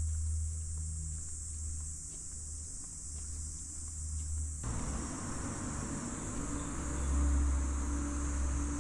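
Steady high-pitched buzz of summer cicadas in the trees over a low rumble; about halfway in, the lower background changes abruptly to a fuller hum.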